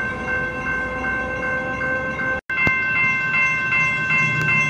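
Railroad grade-crossing warning bell ringing in a steady repeating ding, about three strikes a second. The sound cuts out for a moment about halfway through and the bell comes back at a different pitch, and a low rumble builds near the end.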